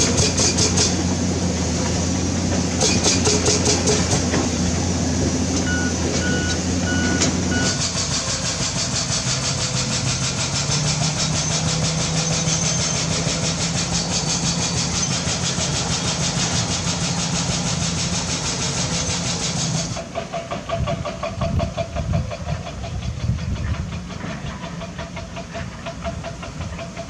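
Diesel engines of heavy earthmoving machinery running, with metallic clattering. The engine sound changes abruptly about eight seconds in and again about twenty seconds in, and turns rougher and more uneven after the second change.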